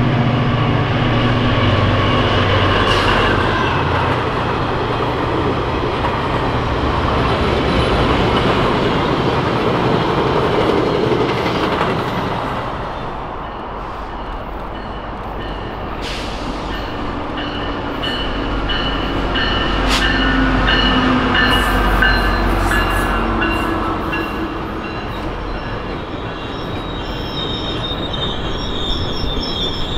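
GO Transit commuter trains: a diesel locomotive rumbling low at first, then a train of bilevel coaches rolling past with steel wheels squealing in steady high tones from about halfway on, strongest near the end.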